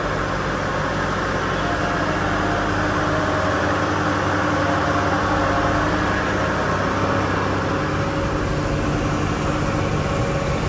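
Truck engine running steadily, a low, even hum with a haze of road or motor noise; its pitch shifts slightly about three seconds in.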